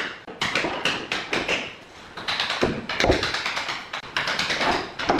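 Rapid, irregular tapping and knocking on wood as hardwood stair treads are pressed and set in place on the steps.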